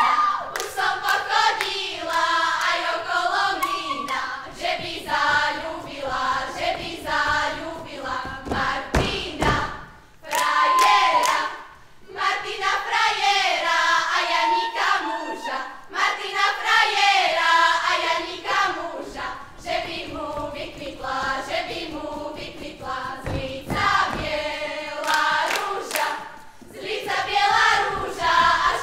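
Group of young women singing a Slovak folk song together, phrase by phrase with short breaks between phrases, with a couple of dull thuds along the way.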